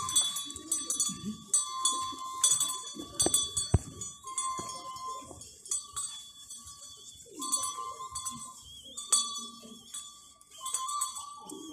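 Traditional dance music: dense high metallic jingling and clinking with a few sharp strikes, and a held high tone that breaks off and returns every second or so, with voices underneath.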